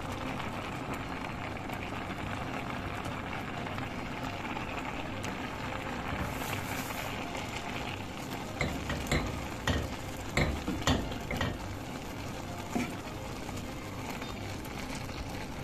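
Pot of rice cooking on the stove with a steady hiss, stirred with a wooden spoon that knocks against the pot several times past the middle.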